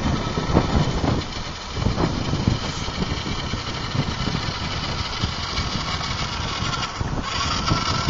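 Fisher-Price toy RC buggy's small battery-powered electric motor and gearbox whirring steadily in low gear, its plastic wheels rolling over rough asphalt as it drives up to the camera.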